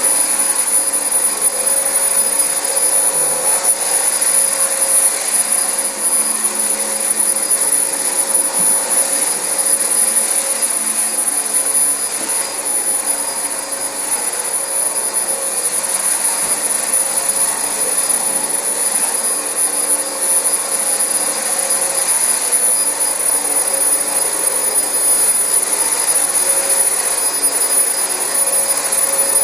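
Dyson DC25 upright ball vacuum running steadily while vacuuming carpet: a constant rush of airflow with a thin, high-pitched motor whine over it.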